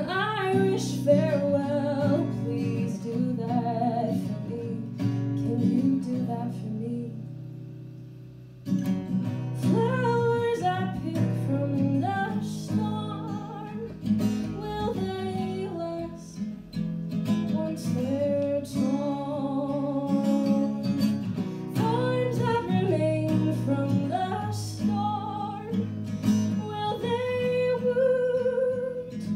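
A woman singing to her own strummed acoustic guitar. About seven seconds in, the sound dies away for a moment, then voice and guitar come back in together around nine seconds.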